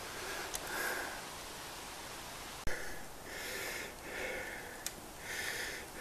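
A person breathing hard, out of breath from climbing a steep hill, with several short hissy breaths in a row. A single sharp click comes a little before the middle.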